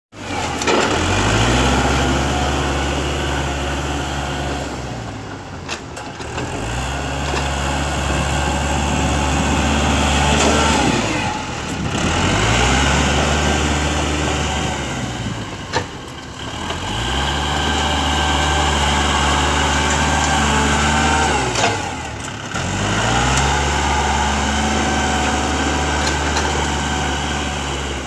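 Kubota L5018 tractor's diesel engine working under load as its front blade pushes soil, revving up and dropping back about five times in a repeating cycle. A few sharp knocks fall between the pushes.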